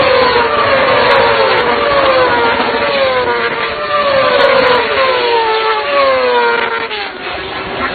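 Racing motorcycles passing at speed one after another, each engine note falling in pitch as it goes by. The sound eases a little near the end.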